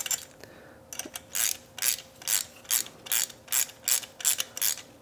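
Hand ratchet wrench clicking as it is swung back and forth in an even run of strokes, about two or three a second, starting about a second in, while it backs out a bolt holding the ignition coils on a VW 1.8-litre engine.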